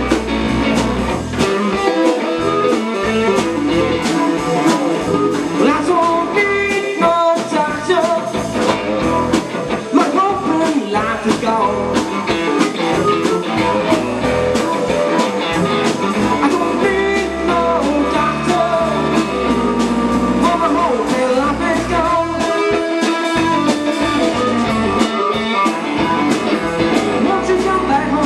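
A live band playing a blues-rock number: guitar over bass and drums, with a steady drum beat and bending guitar notes.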